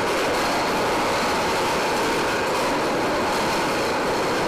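Heavy steel anchor chain of an aircraft carrier running out at speed as the anchor is let go: a loud, continuous rattle.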